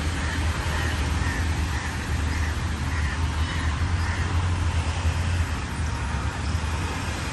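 Steady low rumble and hiss of distant road traffic, with no distinct events standing out.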